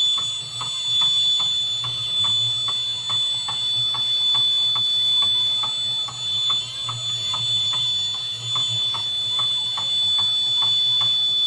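The model boat's buzzer sounds one steady, high continuous tone. Under it the boat's small DC motors hum, with a faint ticking about twice a second from the turning paddle wheels or roller.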